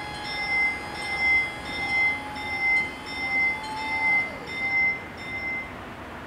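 Railroad crossing bells ringing in steady repeated strokes, about one and a half a second, while the barrier booms lower to close the road. The ringing stops near the end. A short falling tone comes about four seconds in, as the booms come to rest.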